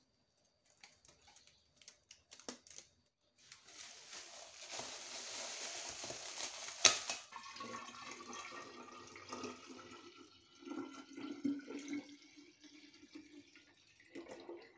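Homemade grape wine poured in a thick stream from a jug into a three-litre glass jar, splashing and gurgling as the jar fills. It starts after a few faint clicks, and there is one sharp knock about seven seconds in.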